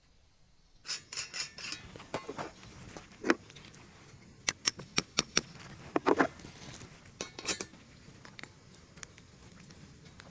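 Light clicks and clinks of small hard objects being handled, in an irregular string that starts about a second in and is busiest around the middle.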